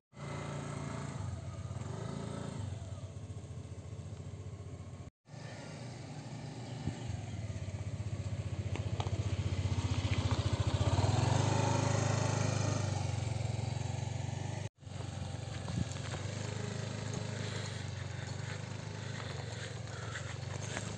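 Small motorcycle engine running at low speed, getting louder through the middle as it picks up speed, then easing off.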